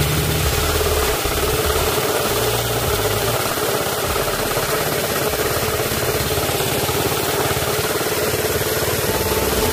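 Small 4 hp four-stroke single-cylinder petrol engine of a homemade go-kart buggy running steadily as the buggy drives, with a fast, even chatter of firing pulses. Background music comes in near the end.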